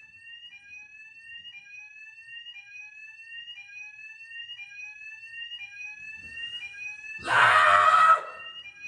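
Electronic fire alarm sounding without a break: a rising tone that repeats about once a second. About seven seconds in, a person lets out a loud wordless yell over it.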